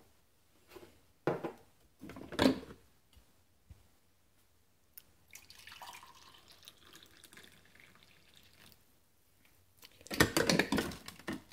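Cream being poured into a mug of coffee: a faint trickle of liquid for a few seconds in the middle, with a few knocks of handling near the start and a louder clatter near the end.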